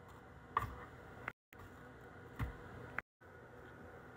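Quiet room tone with a few soft taps and clicks as kitchen tongs set watermelon sticks into a plastic lunchbox. The sound drops to silence twice for a moment.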